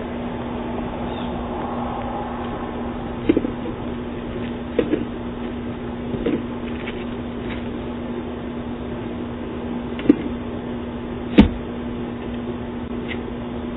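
Background sound from a doorbell camera's microphone: a steady hum over hiss, broken by a few short clicks or knocks. The sharpest knock comes about eleven seconds in.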